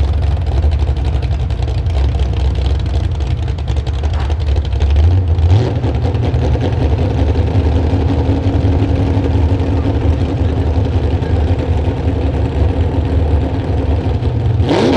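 Gas-engined pulling truck's engine idling with a steady low rumble, with a steady hum over it for much of the middle.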